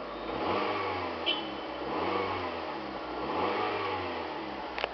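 A 2012 Fiat 500 Pop's 1.4-litre four-cylinder engine revved three times while in park, each rev rising and dropping back toward idle, heard from inside the cabin. There is a short click a little over a second in.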